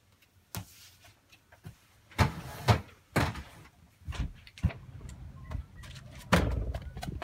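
A run of knocks and thuds as a person gets up from a table and walks out, with a louder cluster about two to three seconds in and a door banging about six seconds in.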